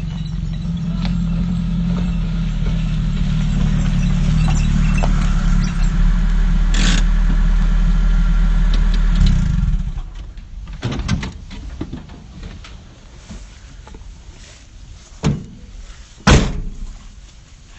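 Mitsubishi pickup truck's engine running steadily, then switched off and stopping abruptly about ten seconds in. A few sharp knocks and bangs follow, the loudest near the end.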